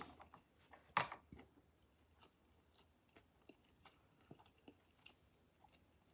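Close-up mouth sounds of someone chewing a California sushi roll: soft, scattered wet clicks and smacks, with one louder smack about a second in.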